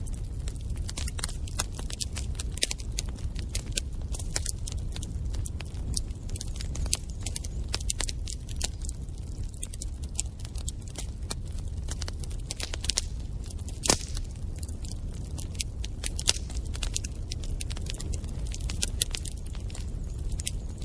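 Wood fire in a fireplace crackling: a steady low rumble of flames under frequent sharp pops and snaps, with one louder snap about fourteen seconds in.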